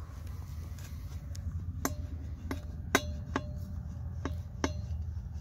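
Sharp metallic clinks and knocks of a chainsaw's steel aftermarket exhaust pipe being handled against the saw, about seven at uneven half-second gaps, each with a short ring; the loudest comes about three seconds in. A steady low rumble sits under them.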